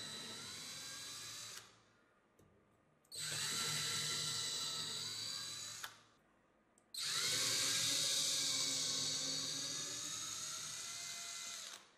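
Electric drill with a twist bit boring into a wooden block. It runs in three spells: it stops about one and a half seconds in, runs again from about three to six seconds, and again from about seven seconds until just before the end.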